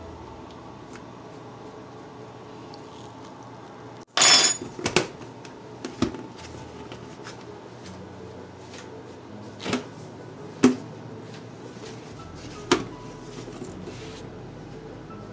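A red plastic lid being fitted and pressed down onto a round plastic bowl on a granite counter: one loud crackling snap about four seconds in, then several separate sharp plastic clicks and knocks as the rim is pressed shut and the bowl is handled, over a low steady room hum.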